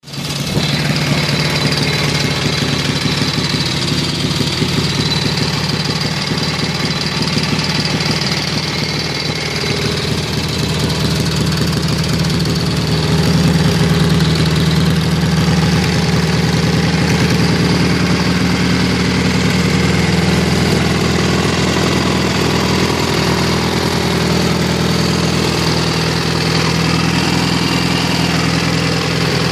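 K-750 motorcycle's side-valve flat-twin engine idling steadily, a little louder from about 13 seconds in.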